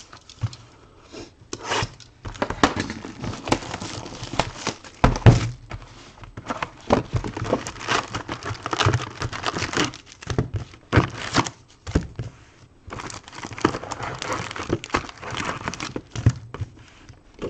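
Cardboard trading-card box being opened and its foil-wrapped packs crinkling and clicking against each other as they are pulled out by the handful and stacked on a table, with a thump about five seconds in.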